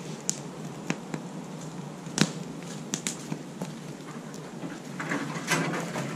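Wood campfire crackling, with scattered sharp pops. A longer scraping, rustling noise comes near the end.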